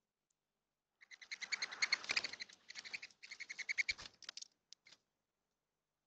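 Mourning doves' wings whistling in rapid pulses as doves flutter on and off the feeder, in two runs of about two seconds each, then a couple of last flaps near the end.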